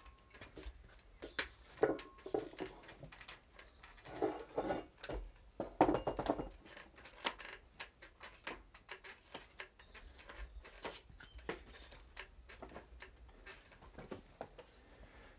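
Scattered clicks, rubs and knocks of a thin wooden trug board being pressed and worked along a roller to bend it into shape, with a few louder handling knocks.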